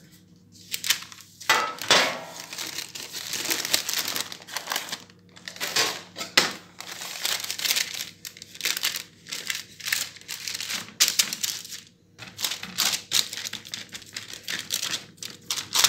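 Parchment baking paper rustling and crinkling in irregular bursts as it is handled in a baking tray under a sheet of dough being pressed out by hand.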